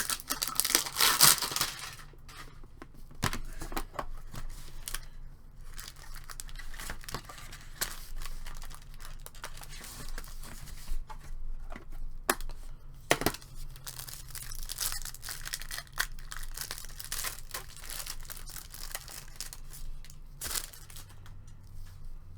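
Trading-card pack wrapper being torn open and crinkled while packaging and cards are handled. The tearing is loudest in the first couple of seconds, and a few sharp clicks and snaps come later.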